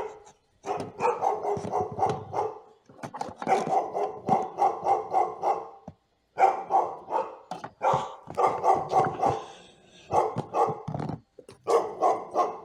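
Dogs barking rapidly and continuously in several long bursts with short breaks, a dog-barking sound effect.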